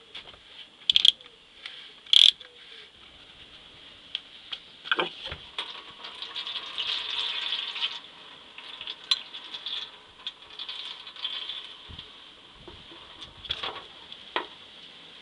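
Socket ratchet clicking as it loosens the plastic oil filter housing cap, with a few loud rattles of the tool. Then a steady hiss of engine oil trickling out of the opened filter housing, and handling knocks as the cap is unscrewed by hand near the end.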